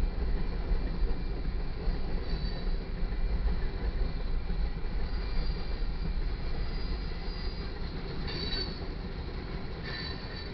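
Freight train rolling through a grade crossing with a steady low rumble. High wheel squeals come in several short bursts in the second half.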